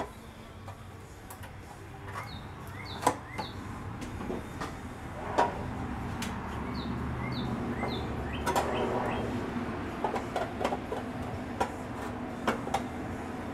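Scattered clanks and knocks of a sheet-steel truck-bed panel being handled and positioned on a metal workbench, the sharpest about three and five seconds in, over a low steady hum. Birds chirp in the background.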